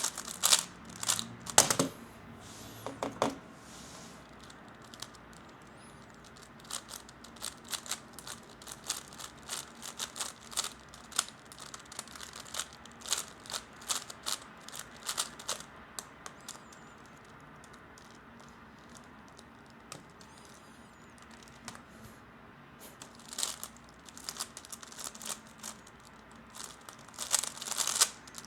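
3x3 speed cube being turned quickly by hand: fast runs of small plastic clicks and clacks as the layers turn, with a lull partway through and a few louder knocks near the start.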